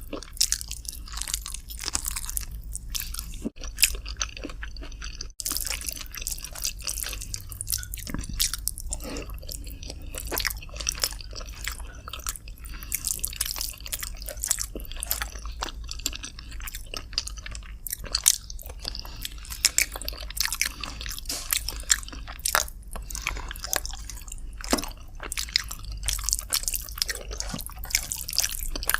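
Close-miked eating of chicken curry with rice: continuous irregular chewing and biting with sharp wet mouth clicks and occasional crunches, over a low steady hum.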